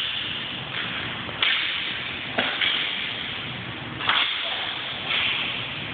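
Hockey sticks cracking against a ball or puck on a hard rink floor, five sharp hits about a second apart, each echoing in the large hall.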